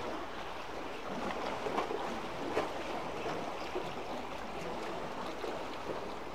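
Sea water washing and lapping among concrete tetrapods: a steady rushing, with a few brief sharper splashes.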